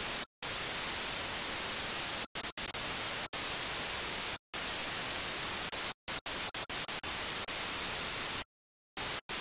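Steady static hiss, even from low to high, cut off by sudden short silences several times, the longest lasting about half a second near the end.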